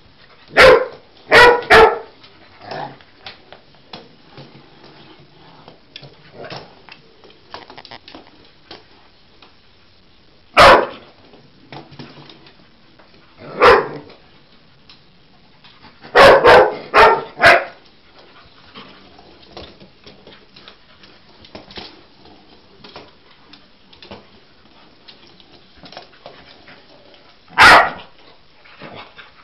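A dog barking in short, sharp barks, about ten in all: three close together near the start, two single barks, a quick run of four in the middle, and one more near the end.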